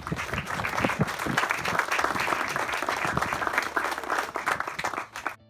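Audience applauding, a dense crowd clapping that is cut off suddenly about five seconds in, after which faint music begins.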